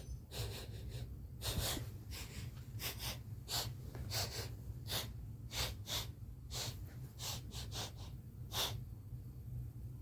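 A lion sniffing: a run of about fifteen short, sharp sniffs at irregular spacing, roughly one or two a second, over a steady low hum.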